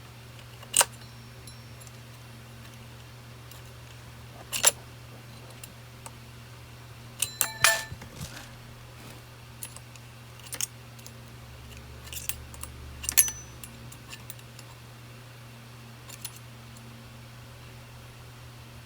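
Scattered sharp metallic clicks and clinks of a combination wrench handled against the bar-cover nuts of a Makita DUC254 cordless chainsaw as they are loosened, with a quick cluster of clinks that ring briefly about seven to eight seconds in. A steady low hum runs underneath.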